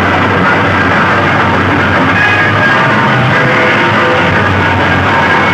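Very loud music blasting from walls of stacked horn loudspeakers of a DJ sound system, with a steady heavy bass.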